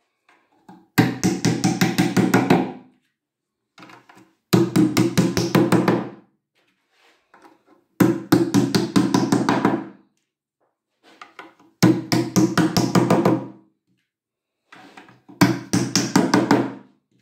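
A hammer tapping white plastic furniture glides into pre-drilled holes in a pine frame, with the sound carrying through the wooden carcass. There are five bursts of quick, even taps, each about two seconds long, one burst for each glide seated.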